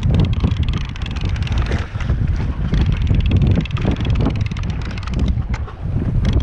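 Wind buffeting the microphone on a boat at sea: a loud, steady low rumble with many small irregular clicks over it.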